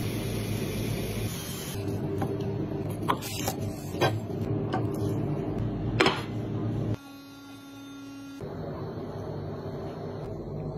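Kitchen handling sounds: a steady hiss, several sharp clicks and a loud glass clink about six seconds in as a glass cloche is set over the plate, then a quieter steady mechanical hum.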